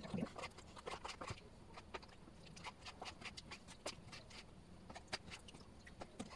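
Knife cutting raw chicken liver into small pieces on a cutting board: faint, irregular taps and clicks of the blade meeting the board.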